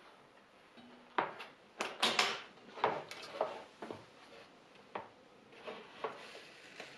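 Wooden case of carving tools being opened and its knives and cutters handled: a string of irregular wooden knocks and small clicks, loudest about two seconds in.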